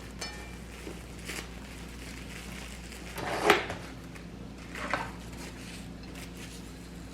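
A few knocks and rustles of food being handled and portioned on a kitchen counter, the loudest knock about halfway through and another a second and a half later, over a low steady hum.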